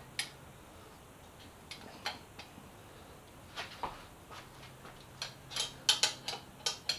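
Scattered small clicks and taps as hands work at a plastic wiring-harness clip on a motorcycle's headlight stay bracket, trying to push it out from behind. The clicks come quicker and sharper near the end.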